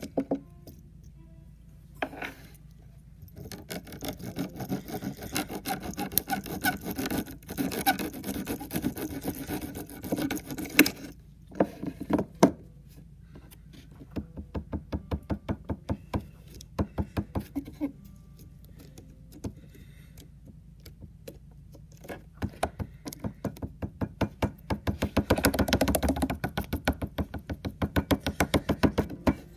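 A serrated blade sawing and scraping at a lump of soft blue material on a wooden board. Runs of quick rasping strokes, with short pauses between runs.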